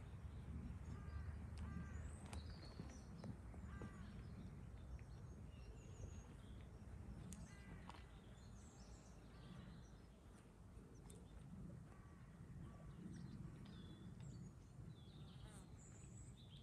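Faint outdoor ambience: small birds chirping now and then over a low, steady rumble of wind or background noise.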